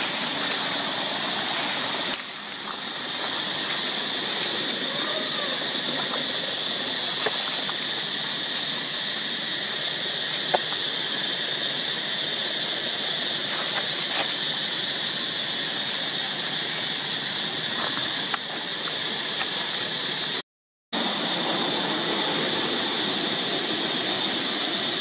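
Steady, high-pitched drone of cicadas, with no break in its pitch; it cuts out briefly near the end.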